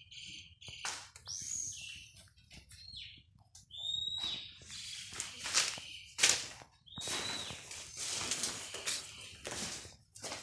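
Bird chirps now and then, short high calls with a falling end, over close rustling and knocks; a sharp knock about six seconds in is the loudest sound.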